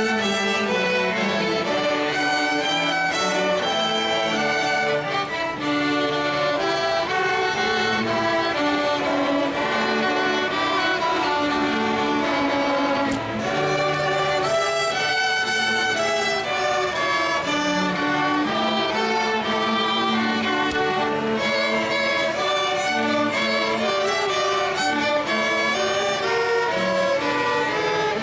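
Youth orchestra playing, led by a large section of violins, the notes moving on without a break.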